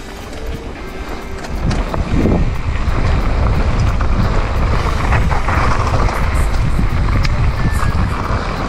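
Wind buffeting an action camera's microphone as a downhill mountain bike gathers speed on a dirt trail, with tyres rushing over the dirt and scattered clicks and rattles from gravel and the bike. The noise grows louder about two seconds in and stays loud.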